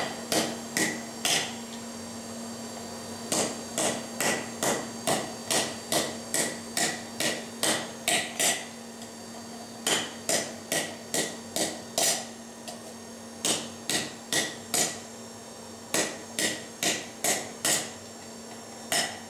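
Hammer blows dishing a thin hot sheet-steel disc over a hole, each strike a sharp ringing clang, coming in runs of several quick blows with short pauses between as the piece is turned. A steady low hum runs underneath.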